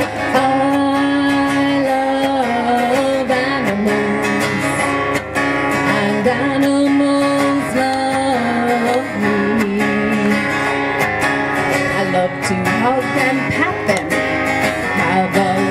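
A woman singing a children's song with long held notes while strumming an acoustic guitar, amplified through a PA.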